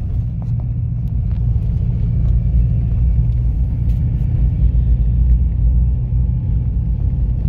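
Steady low rumble of a 4x4 driving on a snow-covered road, heard from inside the cabin, with a few faint clicks.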